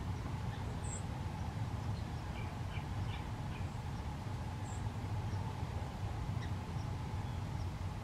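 A few faint, short, high bird chirps and chips, scattered over a steady low background rumble.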